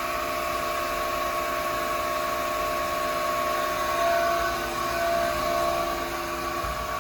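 Studer S33CNC CNC cylindrical grinder running: a steady machine hum and whine made of several steady tones over a hiss, swelling slightly about four seconds in.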